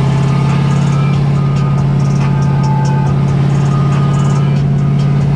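The V8 engine of an LS-swapped Nissan S14 drift car runs with a loud, steady drone, holding an even pitch throughout.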